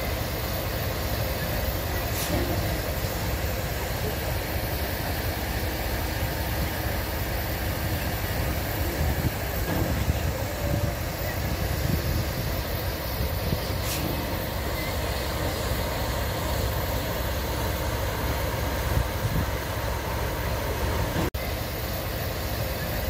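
Locomotives standing at a station with an engine idling: a steady low rumble with a constant hiss over it.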